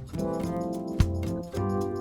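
Instrumental jazz-funk backing track in straight eighths: held chords over a bass line, with a drum hit about a second in.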